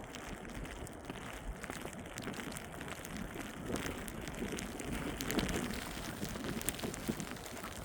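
Footsteps crunching through fresh snow, with dense crackling under each step over a steady hiss.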